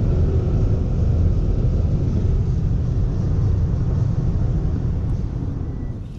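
A car driving at road speed: a steady low rumble of engine and road noise, dropping off in level near the end.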